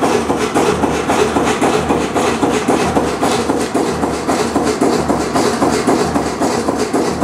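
Kromhout 2H3 marine diesel engine running at a steady speed, its exhaust beating out of the stack in an even, rapid rhythm.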